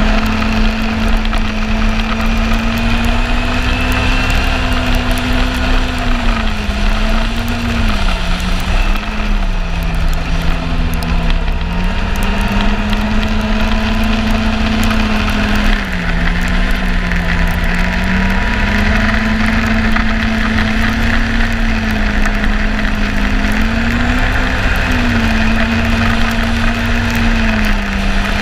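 Yamaha Apex snowmobile engine running at trail speed, its pitch easing down and climbing back several times as the throttle is let off and opened again.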